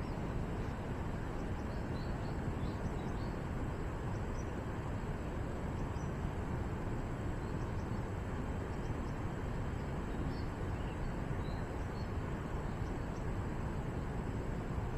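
Steady rushing outdoor noise, with short faint bird chirps scattered through it.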